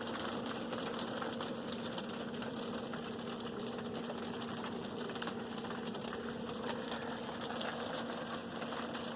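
Dense light ticking of sleet or small hail on a motorhome, over a steady low hum.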